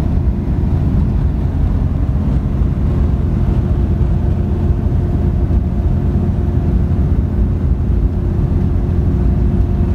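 Interior of a 1955 Morris Minor cruising at steady road speed: its small four-cylinder engine drones at a constant pitch over a low rumble of tyre and road noise.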